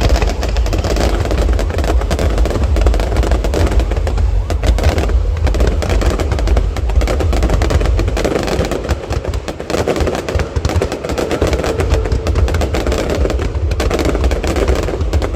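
Fireworks going off in a dense, rapid string of bangs and crackles, over a constant low rumble.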